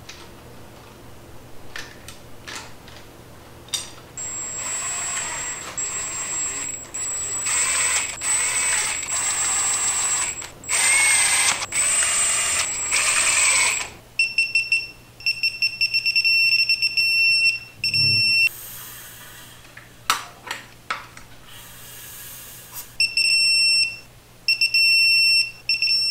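Electronic torque wrench beeping in irregular spells as the LS engine's rocker arm bolts are torqued down. The beep is high-pitched through the first half and switches to a lower, louder beep about halfway through.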